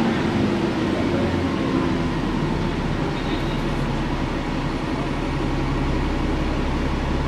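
Alexander Dennis Enviro 400 double-decker bus heard from inside, its Cummins ISBe diesel engine running. A higher drone fades in the first couple of seconds, leaving a low, steady hum from about two seconds in.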